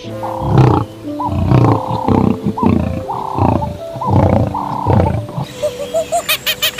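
A large animal calling in a run of deep, rhythmic roaring grunts, about two a second, over background music; the calls stop about five seconds in and the music carries on.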